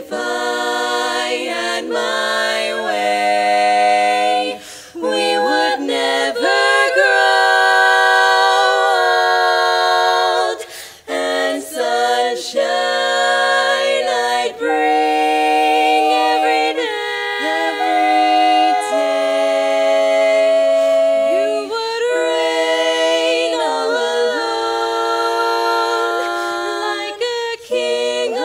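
Women's barbershop quartet singing a cappella in four-part close harmony, moving through held chords, with short breaks between phrases about 5 and 11 seconds in.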